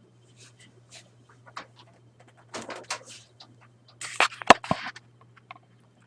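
Handling noise of things being moved and set down: scattered light knocks and rustles, with a cluster of louder scrapes and one sharp knock about four and a half seconds in. A steady low electrical hum runs underneath.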